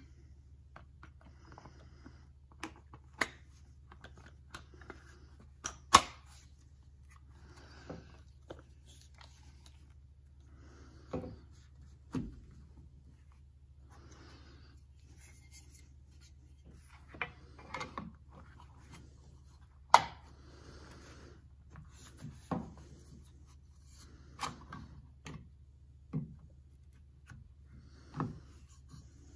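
Parts of a Hi-Point 995TS carbine being handled and fitted together on a table: scattered clicks, knocks and rubbing of the polymer stock halves and metal parts. The loudest are two sharp knocks, about 6 and 20 seconds in.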